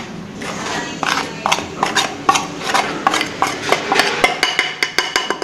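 Plastic plate knocked and tapped repeatedly against a plastic mixing bowl as flour is tipped and shaken out of it onto sugar: a quick, uneven run of light knocks that grows sharper near the end.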